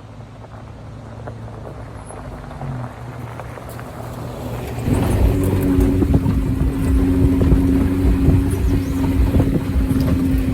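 Jeep's engine running with a steady low hum that slowly grows louder. About halfway through it jumps to a louder, steady drone holding one pitch, as under load while driving.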